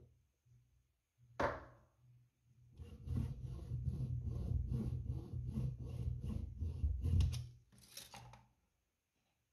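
Small hand saw cutting a thin wooden dowel held in a bench vise, in even back-and-forth strokes of about three a second for some four seconds. A single knock comes just before the sawing starts, and a brief rustle near the end.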